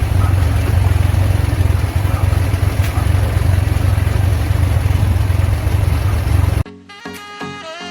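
Suzuki Access 125 scooter's single-cylinder four-stroke engine idling steadily. It cuts off suddenly near the end, giving way to music.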